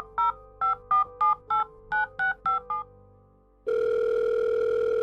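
Phone keypad tones as a number is dialled: about ten quick two-tone beeps. About a second later the ringback tone starts, one steady buzzing tone of about two seconds, as the call rings.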